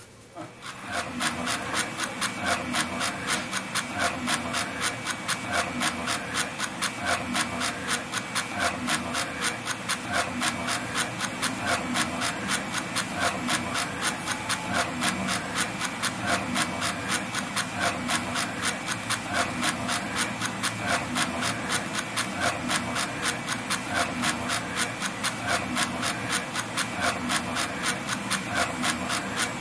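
A steady, rhythmic rasping or rubbing noise made of quick, even strokes, about five a second.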